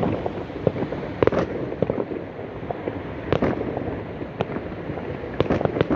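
Fireworks going off: irregular bangs and pops with hardly a pause, bunching into sharper volleys about a second in, midway, and near the end.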